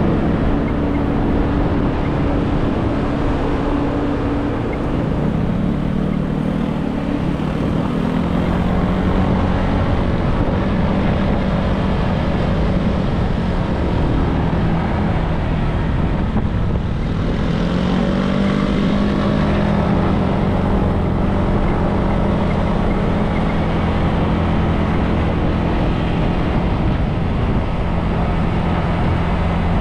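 Motorbike engine running under way, its note falling and rising a few times as speed changes, over steady wind and road rush.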